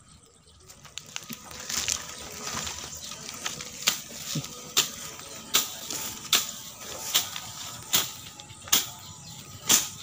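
A parang (machete) chopping into a grass clump and the soil at its base, with sharp strikes about every 0.8 s from about four seconds in, and grass rustling between them.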